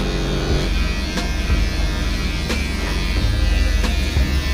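Corded electric hair clippers buzzing steadily while they cut short hair, with a few light clicks.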